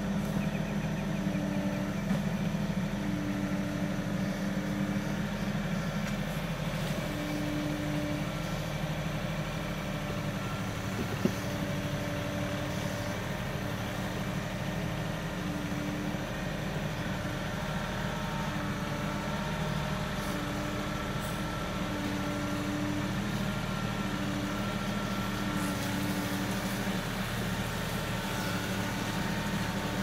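Kioti NX6010 compact tractor's diesel engine running steadily as the tractor creeps through a rocky creek crossing, with one sharp knock about eleven seconds in.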